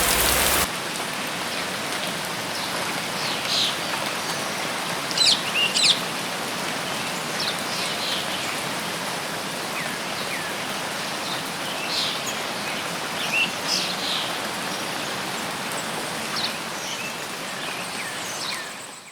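Heavy rain for the first moment, then a sudden change to steady, softer rain noise with small birds calling in short, high chirps throughout, the loudest cluster about five to six seconds in.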